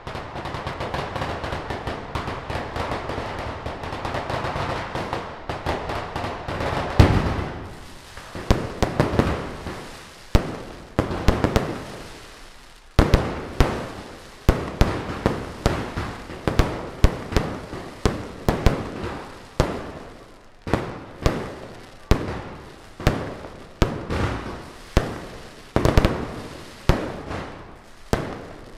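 Mascletà firecrackers by Pirotecnia Martí. The first seven seconds are a dense, continuous crackle that builds. From a very loud bang about seven seconds in, sharp bangs follow roughly one to two a second over ongoing crackling.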